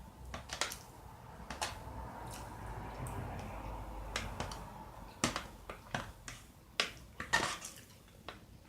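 Close-miked eating sounds: chewing with a string of sharp mouth clicks and wet smacks, and a stretch of softer, noisier chewing in the middle.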